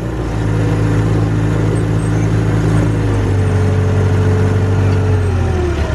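Caterpillar D5 bulldozer's diesel engine running while the dozer pushes a hay bale: a steady drone whose note shifts lower about three seconds in. A whine above it slides lower near the end.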